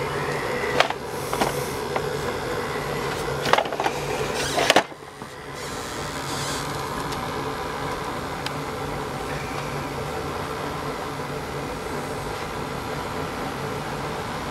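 Steady mechanical hum from a running machine. Several sharp knocks and clicks come in the first five seconds, and the level dips briefly just before the five-second mark.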